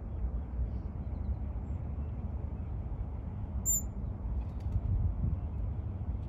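Steady low outdoor background rumble, with one very short high-pitched chirp a little past the middle.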